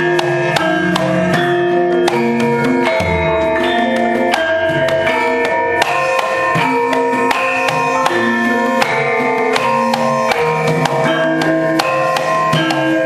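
Javanese gamelan music: tuned metal percussion playing a steady run of struck notes over hand-drum strokes, with a low note ringing out about three seconds in.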